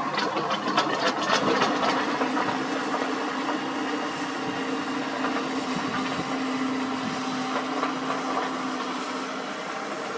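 Sany SY75C excavator running and working, with a steady tone from about a second and a half in until near the end, and a run of sharp clattering in the first two seconds.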